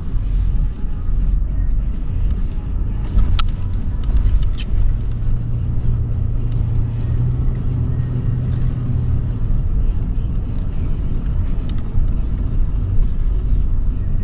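2013 Toyota 4Runner's V6 engine running with a heavy low rumble while driving off-road, the engine note held steadier and stronger for a few seconds near the middle. Two sharp clicks come about a second apart early on.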